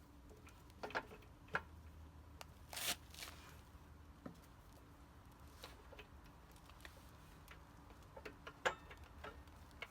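Scattered light clicks and knocks of metal parts and tools being handled while a motorcycle front wheel is refitted, with a short scrape about three seconds in and a sharper knock near the end, over a faint low hum.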